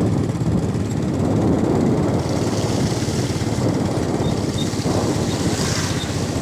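A small engine running steadily with a low, even rumble, with wind noise on the microphone.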